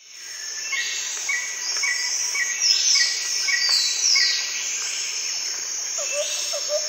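Outdoor nature ambience of several birds chirping and calling over a steady high insect trill, fading in at the start. A lower call repeated several times a second comes in near the end.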